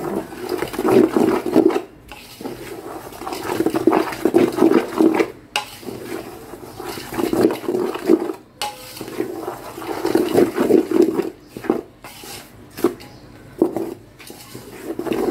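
Black spoon stirring and scraping a crumbly mix of roasted whole wheat flour and puffed gum around a large stainless-steel bowl, a gritty swishing in repeated strokes with short pauses between them.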